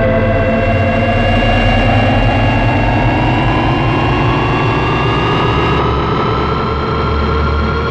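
Retro sci-fi spacecraft engine sound effect: a dense rumble with a whine that rises steadily in pitch, over several steady held tones.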